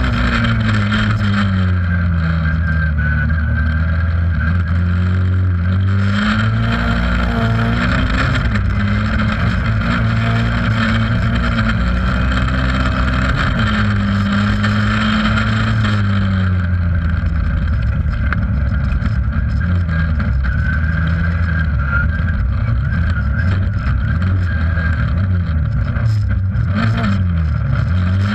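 Race car engine heard from inside the stripped cabin, revving up and down as the car is driven hard, with a few knocks near the end.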